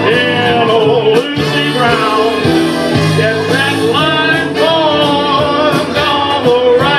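Karaoke: a man singing through a microphone and PA over a recorded band backing track.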